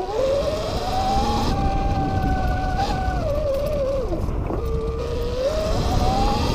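Sur-Ron X electric dirt bike's motor and drivetrain whining under way, the pitch rising, dipping low about four seconds in, then climbing again, over a low rumble of wind and tyres on the dirt trail.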